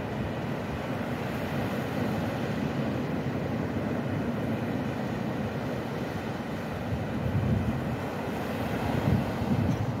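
Surf breaking on a sandy beach, a steady rush of waves, with wind buffeting the microphone in a low, fluttering rumble that gusts louder toward the end.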